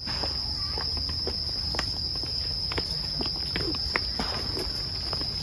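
Steady high-pitched insect chorus drone, with scattered light clicks over a low background rumble.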